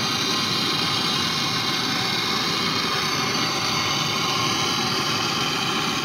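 Handheld gas torch on a yellow disposable gas cylinder, its flame hissing steadily while brazing a copper pipe joint on a refrigerator compressor.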